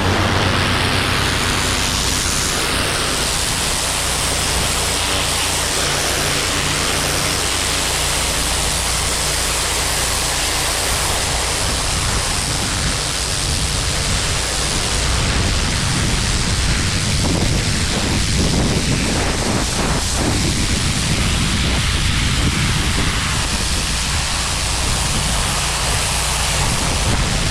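Pressure washer running steadily: the engine's hum under a loud, even hiss of water spray hitting the concrete driveway.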